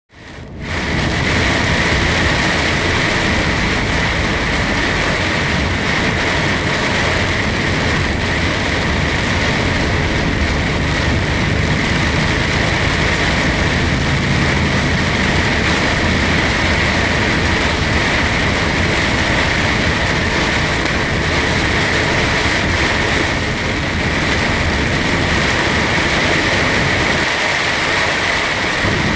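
Steady in-cab noise of a vehicle driving at speed on a rain-soaked motorway in heavy rain: engine drone and low road rumble under a constant hiss of rain and tyre spray.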